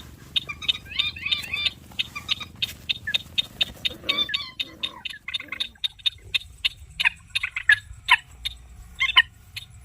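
Rapid, regular series of sharp clicking animal calls, about five a second, with short higher chirps mixed in, busiest near the start and about four seconds in.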